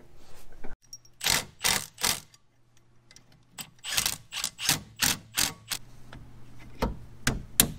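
Irregular sharp metallic clicks and clanks from tools, bolts and a brake caliper being handled at a car's brake rotor, in uneven clusters of a few taps, with a faint steady hum underneath.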